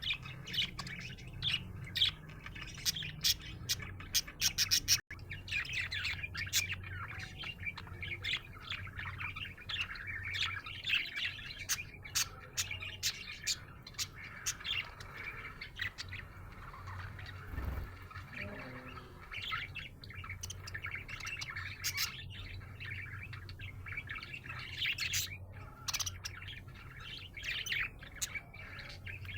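Budgerigar chirping and warbling continuously, a rapid run of short chirps with a steady low hum underneath. The sound cuts out for an instant about five seconds in.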